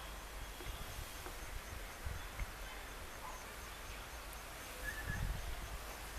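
Faint outdoor ambience: a low, steady rumble with a few brief, faint bird chirps.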